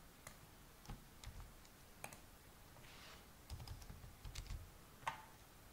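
Computer keyboard keys pressed a few at a time, faint and scattered, with a short run of keystrokes about three and a half seconds in.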